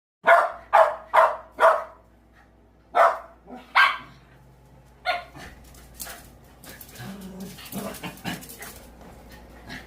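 Small dog barking: a quick run of four sharp barks, then two more about a second apart, and a softer one around five seconds in.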